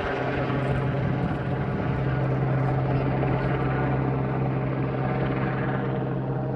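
Helicopter running steadily, a continuous drone with a strong, even low hum over a broad rush of rotor and engine noise.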